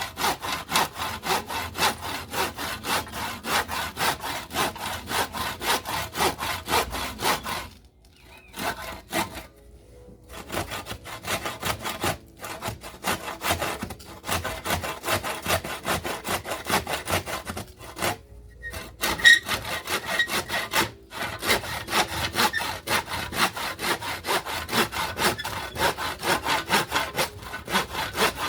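Hand saw cutting through wood in steady back-and-forth strokes, about three a second, stopping briefly twice.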